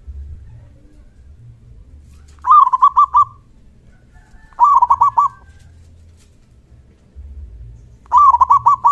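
Zebra dove (perkutut) cooing: three phrases, each a longer first note followed by a quick run of three or four short, clipped coos, the last phrase near the end.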